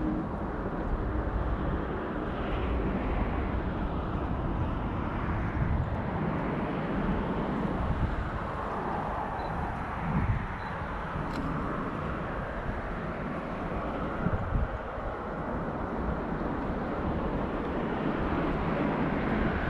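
Outdoor ambience dominated by the steady, gently swelling rumble of a distant vehicle engine.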